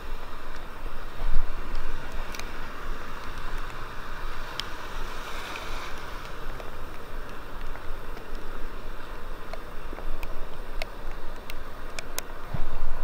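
Steady rush of wind and moving water, with a few scattered small clicks.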